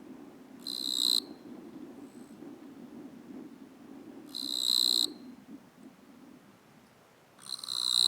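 Male eastern Japanese katydid (Gampsocleis mikado) stridulating, rubbing the file-like teeth of its forewings together in its courtship song. It gives three short, high buzzing bursts about three and a half seconds apart, each under a second long and swelling toward its end.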